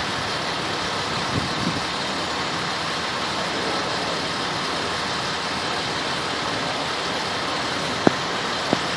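Steady idling of a large vehicle engine, with a few faint clicks.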